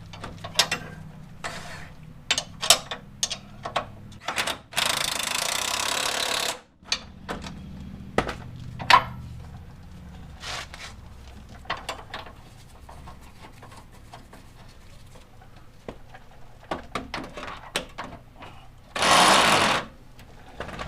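Metal tools and parts clinking and knocking, broken by two loud bursts of an impact wrench: one about two seconds long a few seconds in, and a shorter one near the end.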